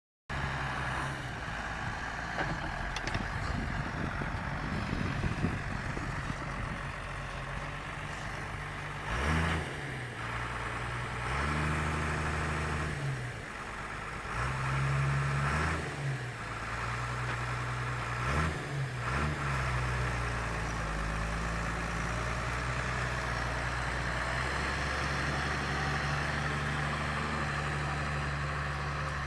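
Deutz-Fahr Agrotron 6.45 S tractor's diesel engine working a plough. Its pitch dips and rises several times through the middle stretch, then holds steady.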